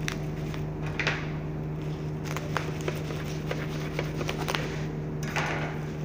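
Plastic bubble wrap around a power supply crinkling and rustling as it is handled, slit with a knife and peeled open, with many scattered sharp crackles. A steady low hum runs underneath.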